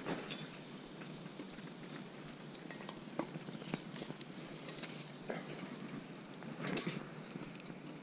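Scattered metal clinks and scrapes of shashlik skewers against dishes, as the cooked first batch of pork is taken off the skewers.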